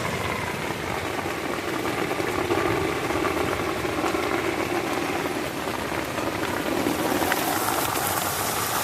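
Rain falling steadily, an even hiss with a low steady hum beneath it.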